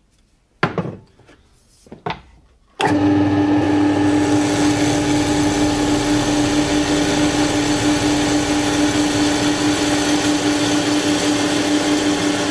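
Benchtop drill press running steadily with a strong hum as it drills 6 mm holes through flat steel bar with an HSS bit. It starts suddenly about three seconds in, after a couple of short knocks from handling the work.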